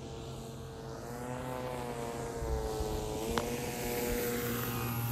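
Electric motor and propeller of a half-scale RQ-7 Shadow RC plane humming steadily under added power as it skims low over the runway in a touch-and-go. It grows gradually louder as the plane comes closer.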